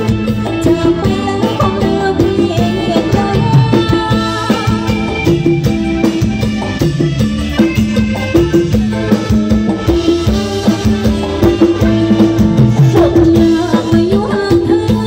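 Live Thai ramwong dance band music played loudly through a PA: a woman singing over a steady drum beat, with held notes from the backing instruments.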